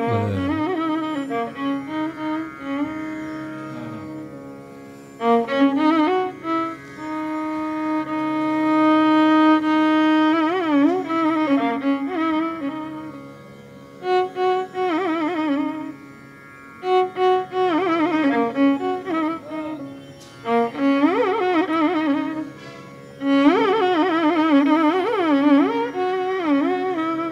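Background instrumental music in the Indian classical style: one melody line with sliding, wavering notes, played in phrases with short pauses between them.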